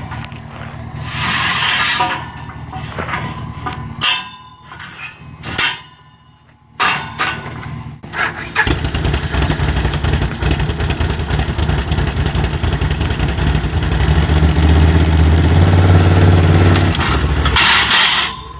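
A small engine starts a little under halfway through and runs steadily, louder for a few seconds near the end, then drops off. Before it there are a few clicks and knocks and a lower running sound.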